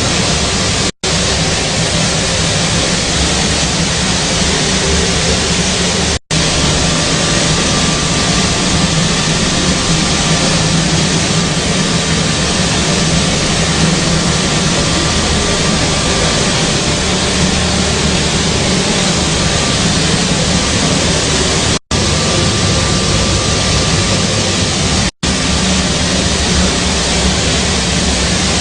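Combined wheat flour milling machine running steadily: a loud, even rushing noise with a low hum beneath it, cutting out for an instant four times.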